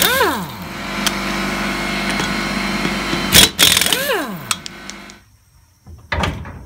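Impact wrench on wheel lug nuts: two short bursts of hammering, each followed by the tool spinning down with a falling whine, over a steady machine hum. About five seconds in the hum stops and a few short knocks follow.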